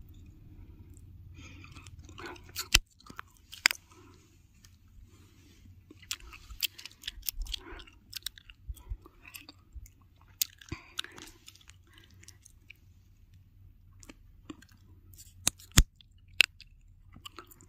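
Irregular crunching of footsteps on dry, gravelly ground, with several sharp clicks and a steady low rumble of wind on the microphone.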